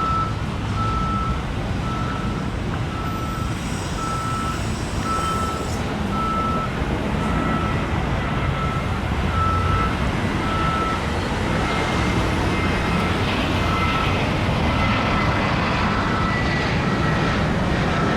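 A construction vehicle's reversing alarm beeping steadily at one pitch, about once a second, over a steady low rumble of engines and traffic.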